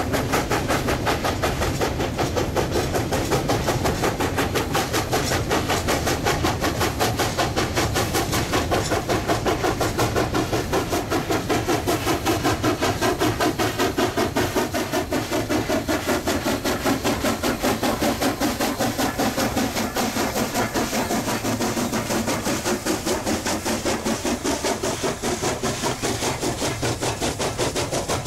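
Steam-hauled coal train running steadily, with a fast, even rhythm of beats that keeps on without a break.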